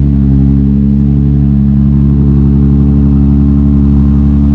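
A car engine running loudly at a steady idle, its pitch holding even.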